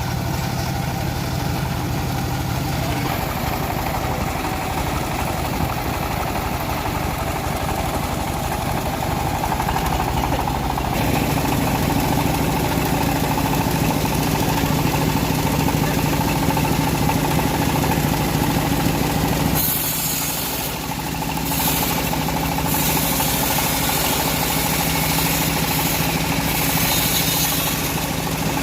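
Band sawmill running steadily as it saws teak, with a droning machine hum. About eleven seconds in it grows louder, and around twenty seconds in a loud hiss joins it.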